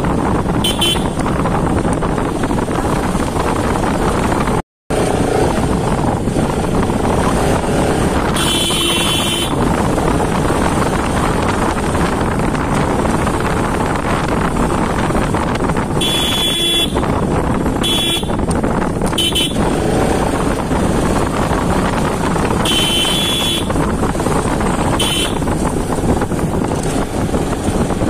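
Bajaj Pulsar RS200 motorcycle riding along with its single-cylinder engine running under a steady rush of riding noise. The horn is sounded in short toots several times. The audio drops out completely for a moment a little before 5 seconds in.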